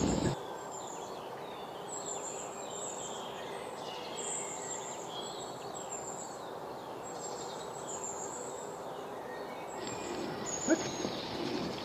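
Birds chirping and calling in short, scattered high calls over a steady hush of open-country background noise. Near the end the background hiss grows louder and a single short tap is heard.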